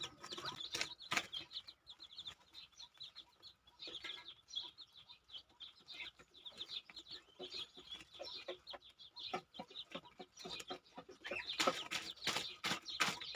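Chickens clucking and calling in a rapid run of short, high-pitched calls, mixed with sharp taps and clicks that get busier and louder near the end.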